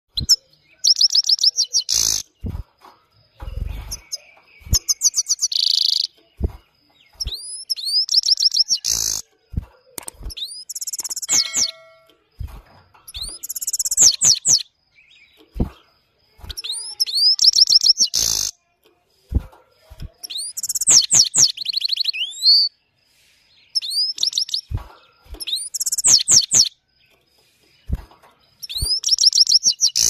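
Caged Himalayan goldfinch singing: about ten bursts of rapid, high twittering and rolling notes, one every few seconds, with scattered sharp clicks between the bursts.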